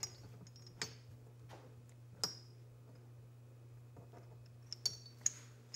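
A handful of light, sharp metallic clicks and clinks of small metal parts being handled, each ringing briefly: one about a second in, a louder one about two seconds in, and a quick cluster near the end. A faint steady low hum runs underneath.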